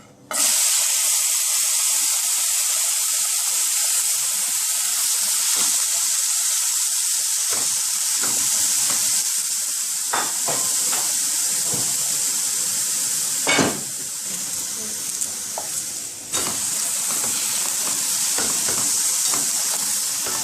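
Cut vegetables sizzling in hot olive oil in a pot as they are sautéed. The sizzle starts suddenly about half a second in and stays steady, with occasional clicks and knocks of a utensil stirring against the pot.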